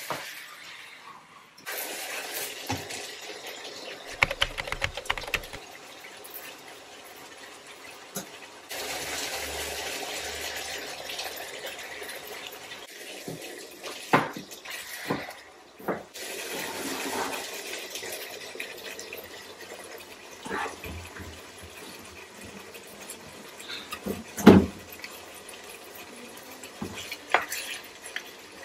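Meat in sauce sizzling and simmering in a wok on an induction hob, a steady hiss, while a spatula stirs and knocks against the pan a few times, the loudest knock near the end.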